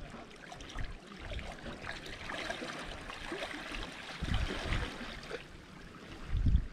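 River water flowing steadily, with a few low rumbles, the loudest near the end.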